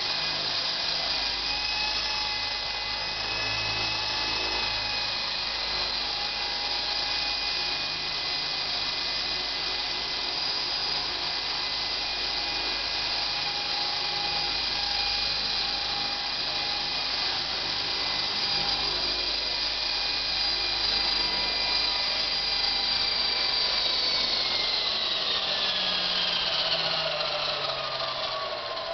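Ikarus Eco Piccolo V2 electric RC helicopter hovering, its motor, gears and rotor making a steady high whine. Near the end the whine slides down in pitch as the motor spools down for landing.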